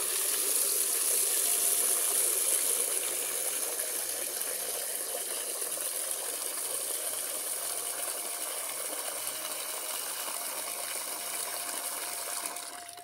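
Water gushing from an outdoor brass tap into a plastic bucket: a steady splashing pour of filling water that dies away just before the end.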